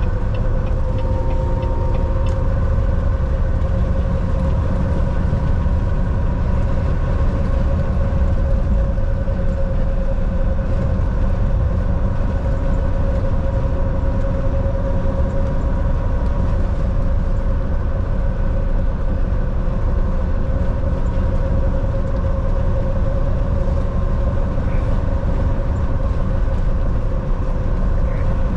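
Volvo semi-truck driving at a steady speed: a constant low engine and road rumble with a steady hum over it.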